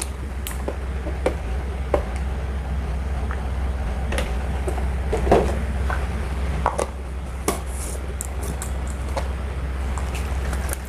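Portable blender running on a mix of frozen banana and milk, its motor straining while the blade knocks against frozen banana chunks, with scattered clicks and knocks over a steady low hum. The frozen fruit is jamming the blade, which the owner blames on too little milk.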